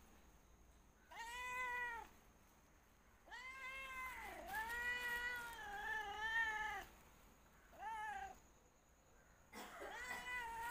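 A cat meowing four times with short silences between: a short meow about a second in, a long, wavering meow of about three seconds, a brief one, and another starting near the end.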